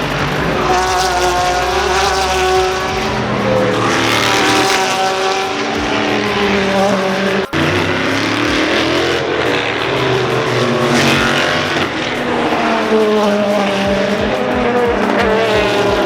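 Race car engines at speed on a circuit, the pitch climbing through the gears and falling on the downshifts as cars go by one after another. About halfway through the sound breaks off for an instant and picks up again.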